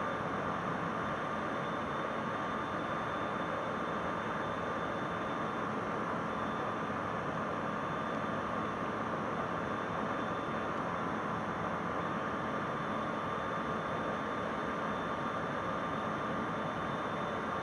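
Steady engine and propeller drone in the cockpit of a Bristell light sport aircraft in cruise flight, its Rotax 912 engine running at an even, unchanging power.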